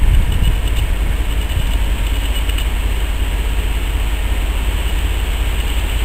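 Steam locomotive running slowly tender-first toward the platform: a low, steady rumble.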